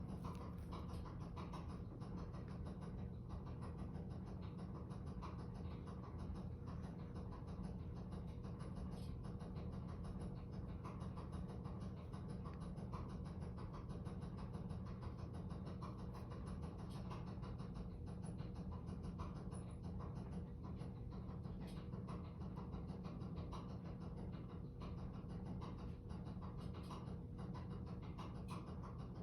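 Washing machine running, with a fast, regular rhythmic noise over a steady hum and low rumble.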